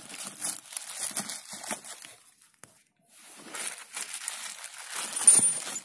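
A clear plastic packaging bag holding a brake caliper guide-pin kit crinkles and tears as it is opened by hand. The handling pauses briefly in the middle, then resumes and ends in one sharp snap.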